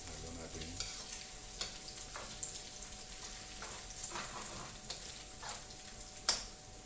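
Eggs frying in a pan over high heat, sizzling steadily while a utensil stirs and scrapes them every second or so, and one sharp clack near the end.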